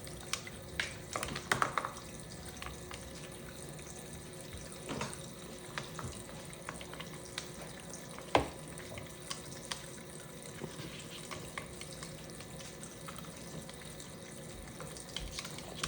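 Toy sink's faucet running a steady stream of water, with scattered light clicks and knocks as a cockatoo plays with the dishes in it; one sharper knock about eight seconds in.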